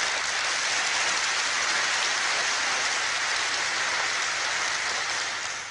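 Large audience applauding: dense, steady clapping that fades away near the end.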